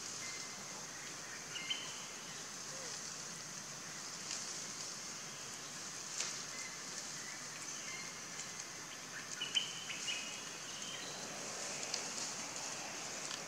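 Quiet outdoor ambience: a steady high hiss, with a few short faint chirps and soft clicks.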